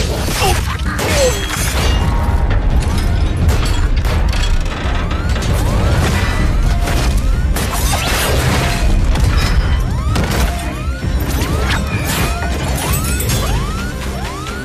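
Action soundtrack of an animated fight scene: score music mixed with impact hits and mechanical clanking sound effects. From about five seconds in, a short rising sound repeats about twice a second.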